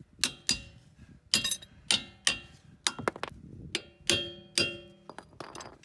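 A hammer strikes a socket to drive it onto a rusted lug nut whose split chrome cap is stopping the socket from fitting. About a dozen sharp, ringing metal clangs come at an irregular pace, several in quick pairs.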